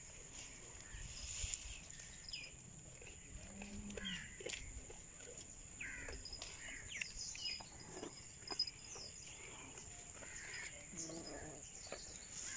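Quiet farmyard ambience: scattered short chirps and clicks over a steady high-pitched whine, with a brief low animal call about four seconds in.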